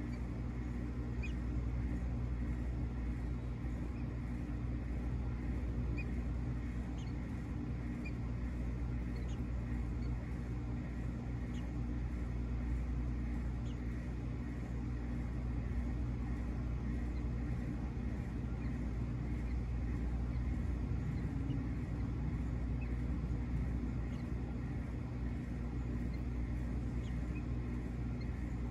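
Steady low hum and rumble with no change, with faint scattered high ticks now and then.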